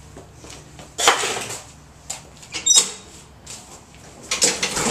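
Recoil pull-start cord of a Honda HTR216 walk-behind lawn mower being yanked three times, about a second and a half apart; each pull is a sudden loud rasp that fades quickly. The engine does not catch.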